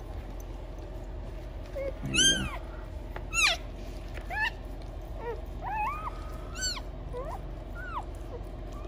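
Newborn German Shepherd puppies crying in short, high, mewing squeals, about a dozen of them, the loudest a little after two seconds and about three and a half seconds in, over a steady low hum.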